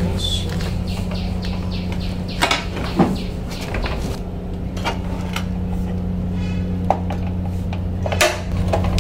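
Tools and metal items being handled and put away, with a few sharp clinks and knocks over a steady low hum.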